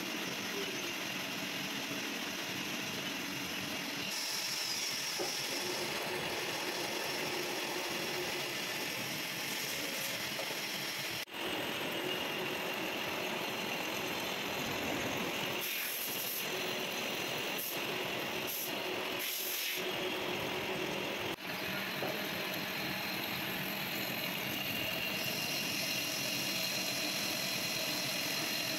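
Centre lathe running, its headstock gears whirring steadily while a cutting tool turns a long metal shaft held between centres. The sound breaks off briefly twice.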